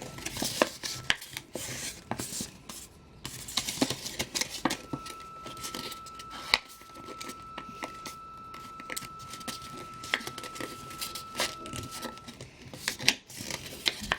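Square sheet of paper being folded and creased by hand for an origami bird: irregular crinkling and rustling with sharp little crackles as the folds are pressed in.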